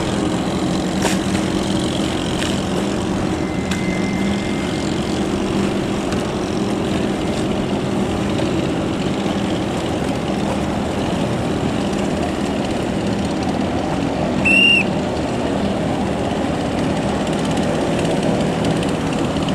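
Small longtail racing-boat engines running steadily in a continuous drone. A short, loud high-pitched whistle sounds once about fifteen seconds in.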